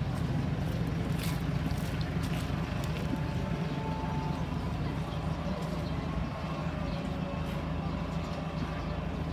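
Street traffic: a vehicle's engine running close by, loudest at the start and fading over the first few seconds as it moves off. A few sharp clicks and a steady background of street noise go on throughout.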